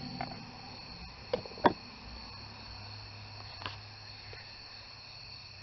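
A few light clicks and knocks of a plastic timing-belt cover being handled and fitted to the engine, the sharpest about one and a half seconds in, over a steady low hum.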